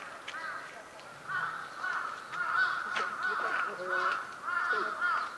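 Birds calling over and over in quick series of short arched notes, getting louder after about a second.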